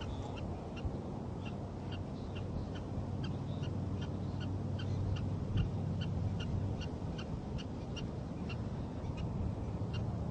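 Prairie dog giving a rapid, steady series of short, high barks, about two to three a second, as a defensive alarm call.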